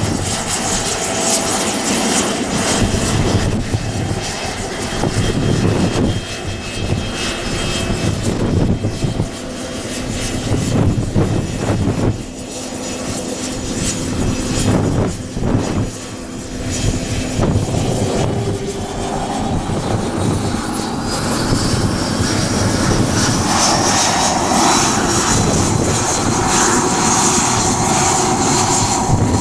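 Twin-engine business jet's rear-mounted turbofans whining and rumbling as it taxis. Over the last ten seconds or so the whine climbs in pitch as the engines speed up.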